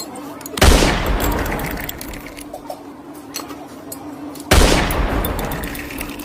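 Soda gassing off twice: each time a sudden burst of hiss and fizz that fades over a second or two.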